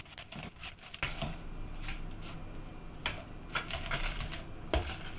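Silicone spatula stirring and scraping a soft butter, sugar and egg mixture around a glass mixing bowl, in irregular wet scraping strokes.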